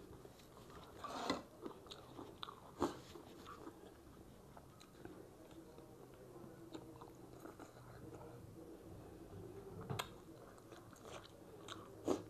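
A person biting and chewing bone-in chicken eaten by hand, with a few short, sharp clicks: about a second in, near three seconds, and near the end.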